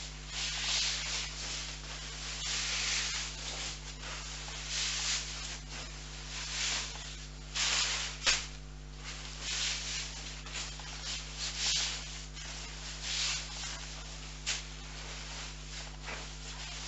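Irregular rustling and swishing of nylon sleeping-bag fabric and plastic bags as a down sleeping bag is stuffed into a compression sack, with a sharper rustle about eight seconds in.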